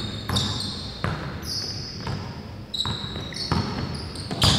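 Basketball being dribbled slowly on a hardwood gym floor, a bounce about once a second, six in all, each followed by a brief high ring.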